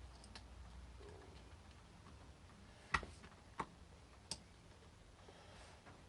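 Three sharp clicks, the first the loudest, about half a second apart around the middle, from small tools working at a padlock's lock cylinder to remove its retaining C-clip.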